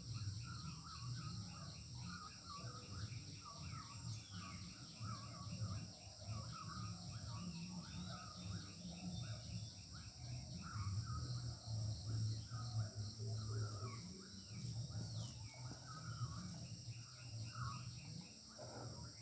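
Steady insect drone and repeated bird chirps, with a few faint scrapes of a knife peeling green papaya.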